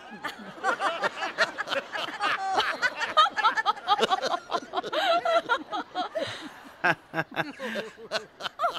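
A theatre audience laughing and chuckling, many voices at once.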